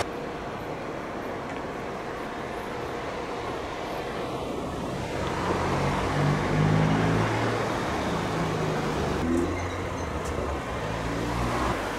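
London Midland electric multiple-unit train running past: a low rumble with a steady motor hum that grows louder about halfway through.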